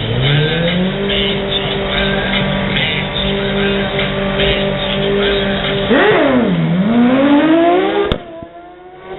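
Drag-racing motorcycle with an extended swingarm doing a burnout: the engine revs up and is held at steady high revs while the rear tyre spins, with tyre squeal. About six seconds in the revs drop sharply and then climb again as the bike pulls forward, until a sudden click near the end after which the sound is much quieter.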